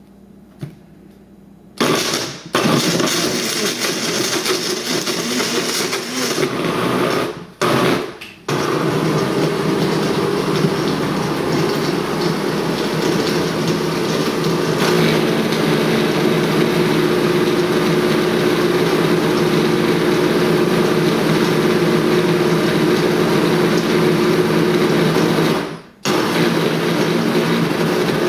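Countertop blender pulverising a whole raw fish with a lemon wedge in water. It starts about two seconds in and stops and restarts a few times in the first several seconds while the fish breaks up. It then runs steadily, its tone settling from about halfway as the contents turn to liquid, and it cuts out briefly near the end before running again.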